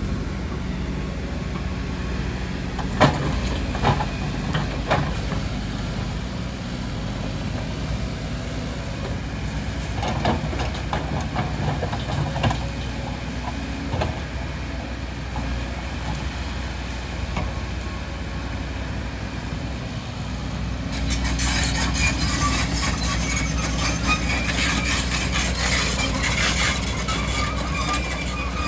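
Excavator diesel engine running steadily, with several sharp knocks in the first half. About two-thirds through it gets louder and a high whine joins in.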